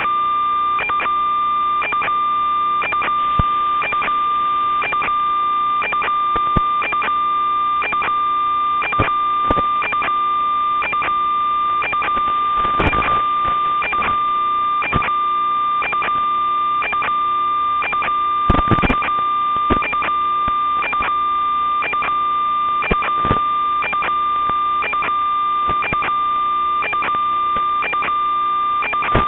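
Electronic noise on an analog FPV video receiver's audio channel: a steady high whine with evenly spaced clicks about three times a second, and louder crackle twice. It is interference, not the sound of the drone.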